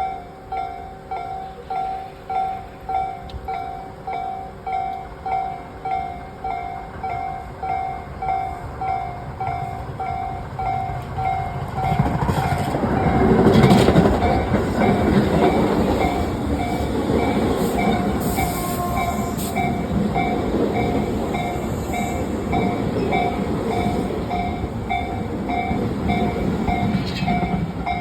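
Japanese level-crossing warning bell dinging about twice a second. About twelve seconds in, a Tobu 8000-series electric train arrives over the crossing: a loud rumble of wheels on rails that peaks soon after and goes on as the train runs through, with the bell still dinging.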